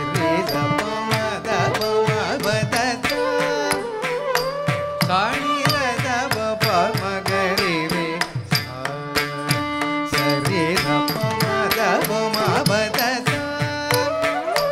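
Carnatic music for a jathiswaram in raga Arabhi and Adi tala: an ornamented melody gliding between notes over a steady run of drum strokes, with no break.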